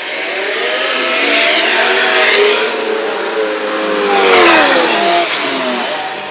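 Diesel engine of a front-loader garbage truck revving up and back down twice, its pitch rising and falling, the second swell the loudest.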